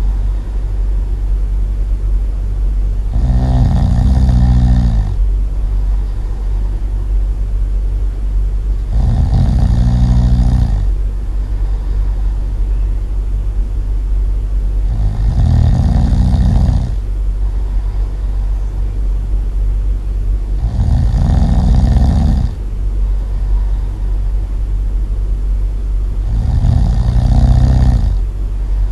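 Loud snoring: five long, low-pitched snores about six seconds apart, over a steady low rumble.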